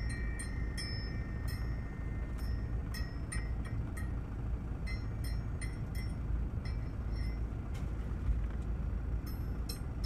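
A run of short electronic key beeps from a Tech II diagnostic scan tool as its buttons are pressed, over the steady low running of an Isuzu 4JX1 3.0 four-cylinder diesel at idle.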